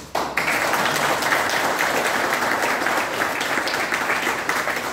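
Audience applauding, breaking out suddenly a moment in and keeping up steadily.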